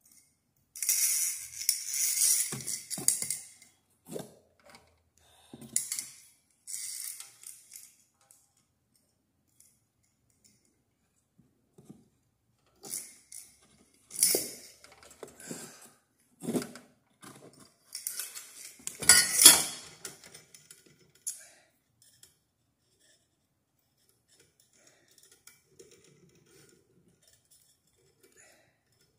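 Metal ceiling-fan parts, the down rod and its canopy, clinking, knocking and scraping as they are handled, in irregular bursts with quiet gaps between. The loudest knock comes about two-thirds of the way through.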